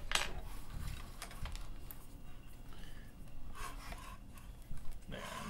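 Stepcraft 2 CNC Z-axis carriage and its roller bearings in the aluminium linear track, handled and shaken: a sharp clack at the start, then scattered light rubbing and clicks. This is a shake test of the freshly adjusted track rollers, which turns out free of play and sliding smoothly.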